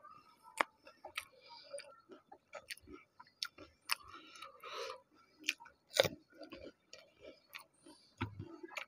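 Close-up chewing and crunching of fuchka (panipuri), the crisp hollow fried puri shells cracking in the mouth as sharp irregular clicks and crackles, with the loudest single crunch about six seconds in.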